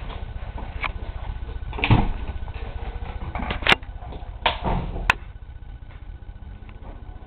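Handling noise from a handheld camera: a steady low rumble with a few knocks and clicks. The loudest knock comes about two seconds in, and two sharp clicks follow about a second and a half apart.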